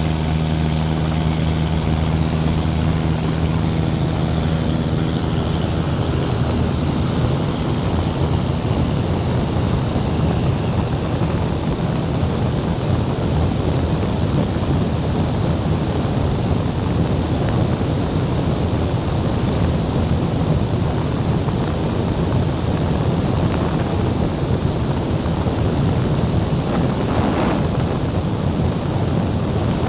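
Single-engine propeller engine of a Cessna 177 Cardinal droning steadily in flight. Its even engine note is plain for the first six seconds or so, then is swamped by a loud rushing of wind noise.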